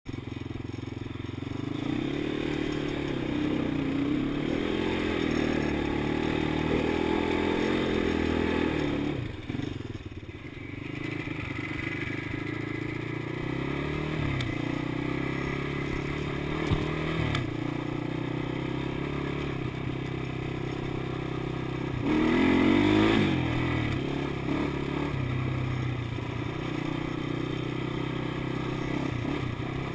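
Small ATV engine running under way, its pitch rising and falling as the throttle is worked, over the clatter of tyres on gravel. It drops away briefly about nine seconds in and revs hardest about twenty-two seconds in.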